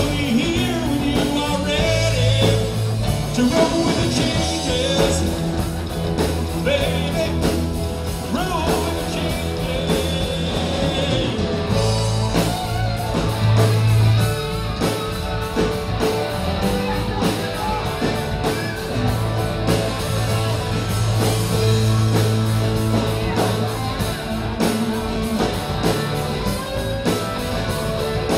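Live rock band playing a song with singing over bass and drums.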